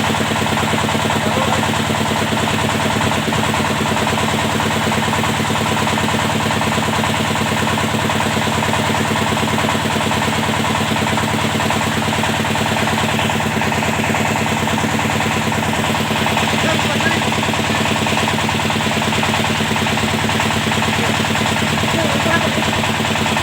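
Engine of a well-drilling rig running steadily at a constant speed, with a fast, even firing pulse.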